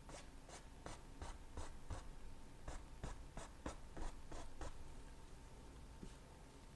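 A paintbrush making short, quick strokes on a canvas, about three a second, stopping about four and a half seconds in.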